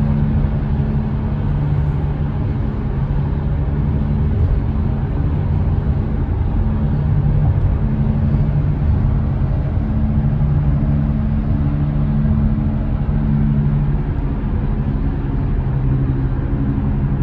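Front-end groan of a 2003 Acura CL at moderate to high road speed: a low drone over steady road noise that swells and fades every second or two. The owner leans towards a worn wheel bearing, though the wheels feel solid when shaken.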